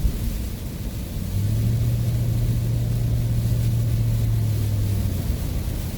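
Ford van driving at highway speed, heard from inside the cab: a steady road and engine rumble. A low, even drone comes in about a second and a half in and fades out near the five-second mark.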